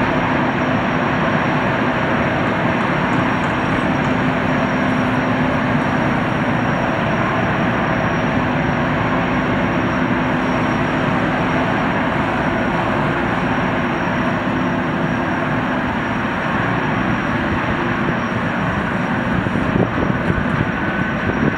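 Boeing Jetfoil 929-115's gas turbines and water jets running steadily as the hydrofoil moves slowly hullborne, foils retracted: a loud, even rush with a thin steady high whine above it and a low hum that fades about halfway through.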